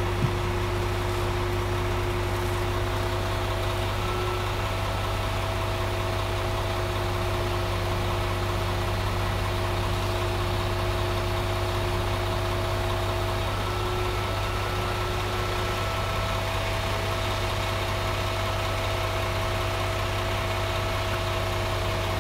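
Diesel engine of a concrete truck running steadily at constant speed, a low even drone that holds unchanged throughout.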